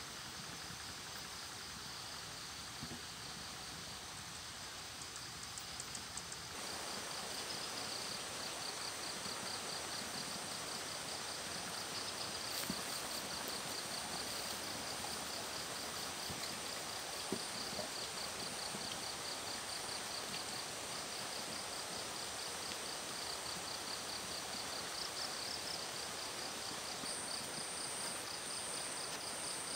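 Evening insect chorus: insects chirping in a steady, fast-pulsing high trill over a background hiss. It grows louder about six seconds in, and a second, higher-pitched insect joins near the end.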